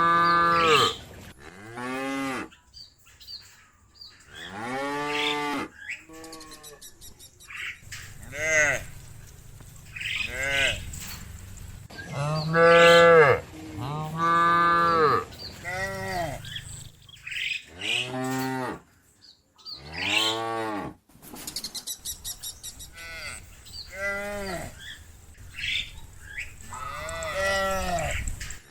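Cattle in a herd mooing one after another: about a dozen long moos from different cows, some lower and some higher, each rising and falling in pitch, with short pauses between.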